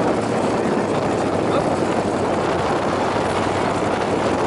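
Dune buggy engine running steadily as the buggy drives over the sand, mixed with a dense rush of wind noise over the open roll cage.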